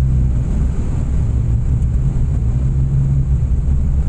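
Car engine and road noise heard from inside the cabin while driving: a steady low drone.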